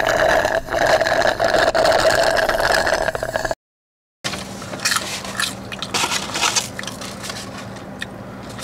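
Soda being slurped through a plastic straw from a cup of ice: a loud, steady slurp lasting about three and a half seconds that stops abruptly. After a moment of silence comes irregular crackling and rustling.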